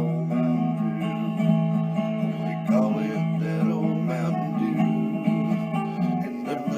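Acoustic guitar playing an instrumental country tune: strummed chords under a moving melody line.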